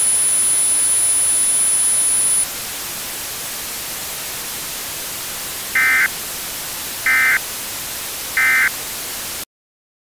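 Steady radio static hiss with a thin high whine, which stops about two and a half seconds in as the hiss drops in level. Then come three short, harsh data bursts a little over a second apart: the Emergency Alert System end-of-message tones. The sound cuts off abruptly near the end.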